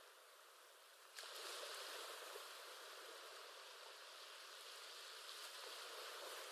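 Faint recorded ocean-wave ambience: a steady, even hiss of surf that steps up in level about a second in and then holds.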